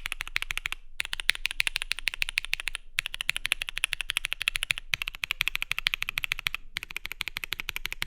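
Fast typing on a KBDfans D84 v2 mechanical keyboard with lubed, filmed SP Star Purple switches, a polycarbonate plate and GMK keycaps: a dense run of clicky keystrokes in stretches of about two seconds, with brief pauses about one, three, five and seven seconds in.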